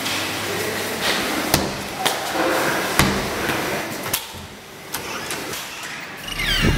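A door being kicked: several heavy thuds on it, roughly a second apart.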